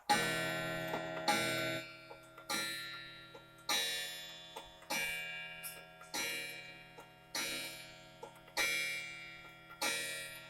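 Clock striking the hour on its gong: a run of evenly spaced ringing strikes, about one every 1.2 seconds, each dying away before the next, with the clock's ticking faintly underneath.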